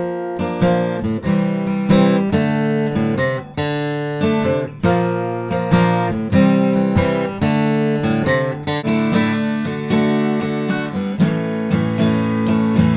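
Journey Instruments folding carbon-fibre travel guitar with steel strings, strummed in chords, each stroke sharp and ringing on into the next.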